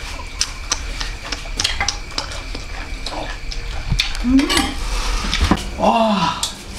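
Kitchen utensils clinking and scraping against pots and bowls while food is stirred and dished up: a steady run of small, sharp clinks.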